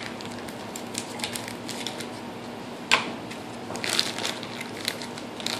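Scissors cutting the plastic wrapper of a block of processed cheese, and the wrapper crinkling as it is peeled off, with scattered small clicks; a sharp click about three seconds in, and a denser crinkle about four seconds in.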